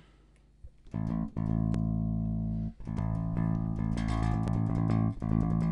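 Electric bass guitar playing a few long sustained notes, starting about a second in, as its recording input level is being checked.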